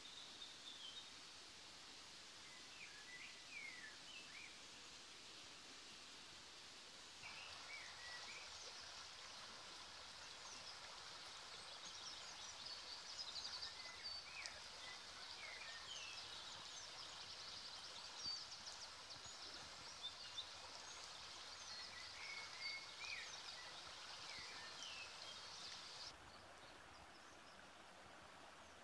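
Faint woodland birdsong, scattered chirps and short trills from several birds. Under it is a soft, steady rush of running stream water that comes in suddenly about seven seconds in and cuts off a few seconds before the end.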